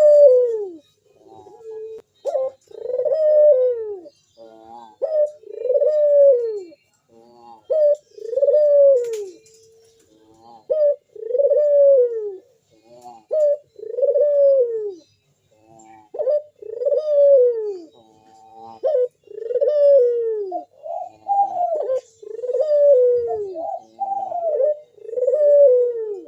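Puter dove (an Indonesian cage-kept turtle dove) cooing in full song: a steady series of loud coos, each rising and then falling in pitch, about one every two seconds with short clipped notes between them. Later on a second, higher cooing line overlaps the first.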